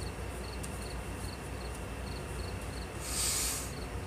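A cricket chirping steadily, about two short chirps a second, over a low steady hum. About three seconds in, a short rustle as a card is drawn from the deck.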